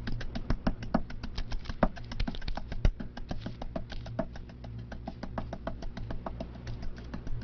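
Wooden pestle pounding rapidly in a small wooden mortar, about six or seven sharp knocks a second, uneven in strength, over a steady low hum.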